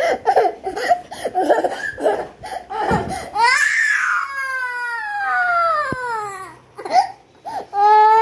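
Young girl crying: choppy sobs for the first few seconds, then a long wail that falls in pitch, and a second drawn-out wail starting near the end.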